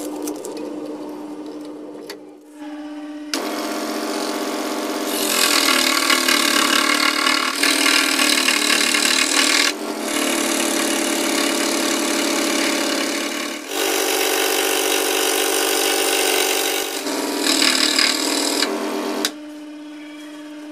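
Scroll saw running with a steady hum, its blade cutting through a thin wooden board for most of the stretch as a loud, buzzing cut that shifts a few times as the cut turns. Near the end the cutting stops and only the saw's running hum is left.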